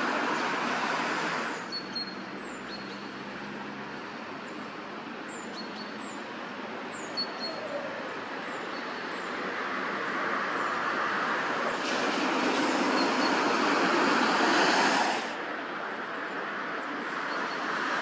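Steady rushing noise of distant road traffic, quieter in the first half, swelling from about ten seconds in and dropping sharply near the end. Over it, in the first half, a small bird gives short, high, falling chirps about once a second.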